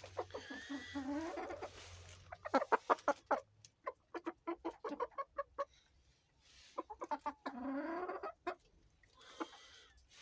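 Chickens clucking: runs of short, quick clucks between longer drawn-out calls.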